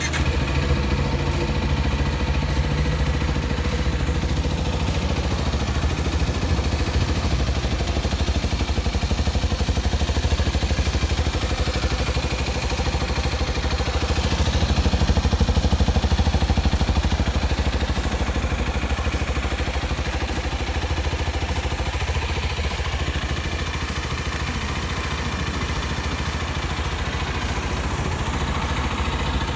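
Kawasaki Z250SL single-cylinder engine running through a home-modified airbox and exhaust, idling steadily with a mild rise in revs about halfway through. The owner says it sounds like a twin-cylinder.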